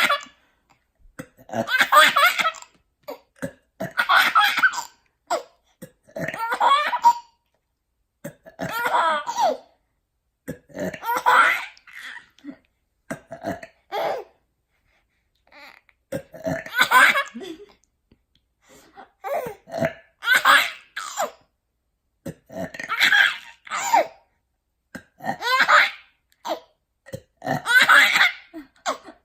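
A baby laughing in about eleven separate fits, one every two to three seconds, each set off by a burp.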